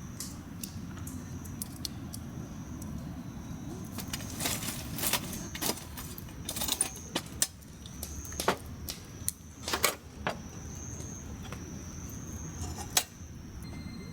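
Small hard objects being handled, clinking and rattling in a cluster from about four to ten seconds in, with one sharp click near the end, over a steady low rumble.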